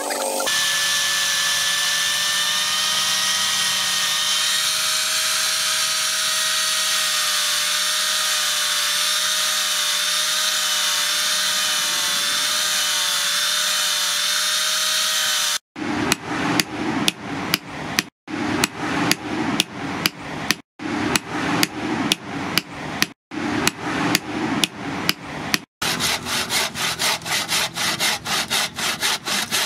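An angle grinder fitted with a sanding pad runs with a steady whine while sanding a wooden handle. About 16 seconds in it gives way to a handsaw cutting through wood in quick back-and-forth strokes, about three a second, broken by a few short silences.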